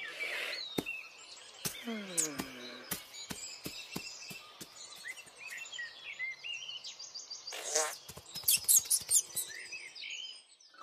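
Cartoon countryside ambience of small birds chirping and tweeting, with scattered light taps and a short falling vocal call about two seconds in.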